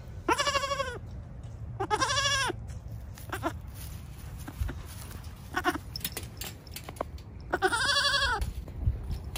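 Goats bleating: three long bleats, each rising then falling in pitch, and two short ones between them, over a steady low rumble.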